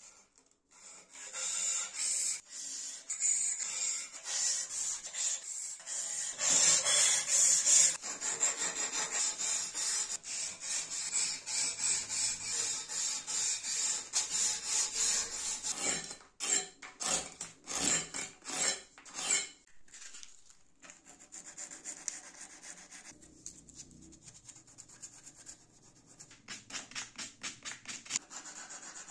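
Repeated abrasive rubbing strokes on wild plum wood, quick back-and-forth scratchy strokes. They start about a second in and grow softer near the end.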